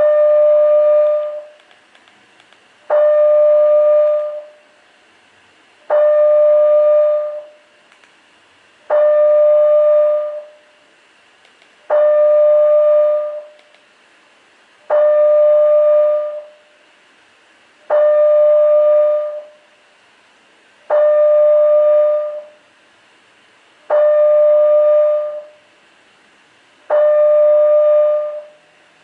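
Building fire alarm sounding a steady, loud mid-pitched tone about a second and a half long, repeated every three seconds. This slow pattern is the alert signal of a Canadian two-stage fire alarm system.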